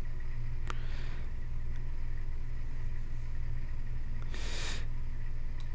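Steady low hum of industrial machinery, with a faint click about a second in and a short burst of hiss about four and a half seconds in.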